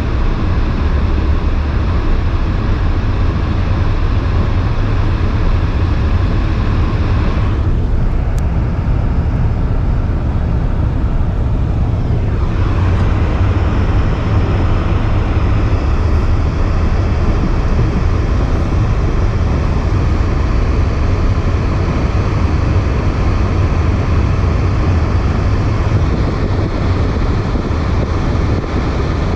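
Car driving on a snow-covered, slippery road: a steady low rumble of engine and tyres. The higher hiss thins out for a few seconds about eight seconds in.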